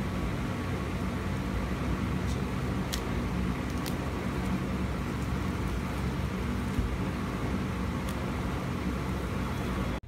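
Steady low background rumble and hum, with a few faint light crinkles as a thin plastic bag is slid off a power bank.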